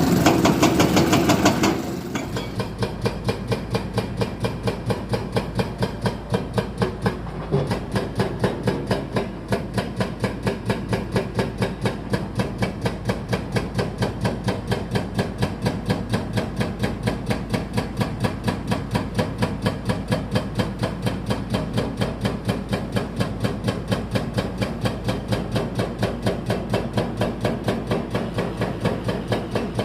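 An engine running with a steady, even chugging beat of several pulses a second. A louder, different machine sound cuts off about two seconds in.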